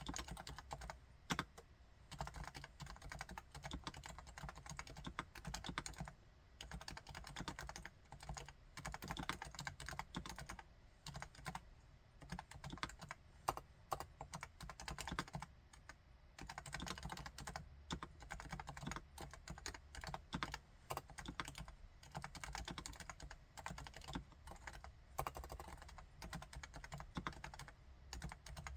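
Topre Realforce R4 electro-capacitive keyboard being typed on quickly, in runs of soft, quiet keystrokes with short pauses between them.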